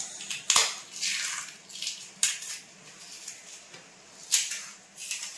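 Kitchen handling noises as toppings are sprinkled by hand over a steel plate of chaat: a sharp click about half a second in, then several short rustling hisses.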